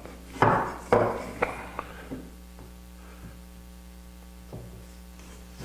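Steady electrical mains hum, with a few short knocks and rustles in the first two seconds.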